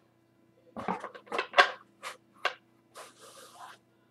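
Handling noise: a quick run of sharp clicks and crinkles starting about a second in, then a short rustle a little after halfway.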